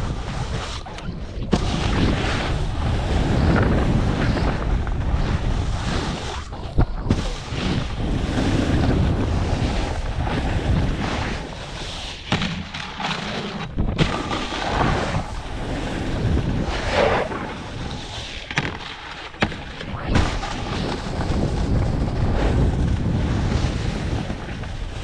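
Wind buffeting the microphone of a body-mounted action camera during a fast downhill ride on snow, mixed with the hiss of sliding over packed snow. It drops out briefly a few times, with a couple of sharp knocks.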